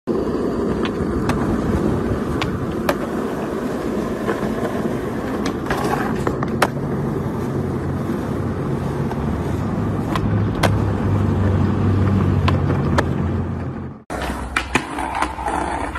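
Skateboard wheels rolling on rough asphalt, a steady rumble with occasional sharp clacks of the board. After a cut near the end, a few sharp knocks of a board on smooth paving.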